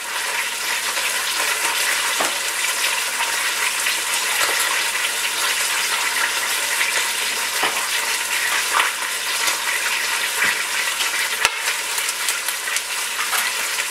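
Beef roast searing in avocado oil in an Instant Pot's stainless inner pot on sauté mode: a steady sizzle with scattered pops and crackles.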